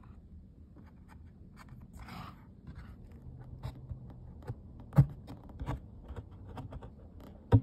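Handling noise from a paper picture book and the phone filming it: faint scraping and rubbing. A soft brushing swish comes about two seconds in, and sharp taps come about five seconds in and again at the end.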